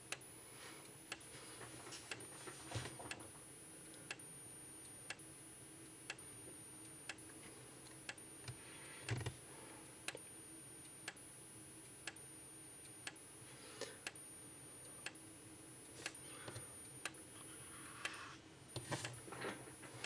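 Gentex SSPK24WLPW strobe, set at 75 candela, flashing about once a second: a faint tick with each flash, and a faint high-pitched whine between flashes as it recharges. A few soft knocks come in between.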